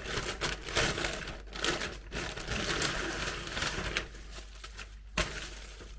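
Packaging and fabric rustling and crinkling as a pair of leggings is unwrapped and handled, with many small clicks and taps. It quietens after about four seconds, and a single sharp tap comes about five seconds in.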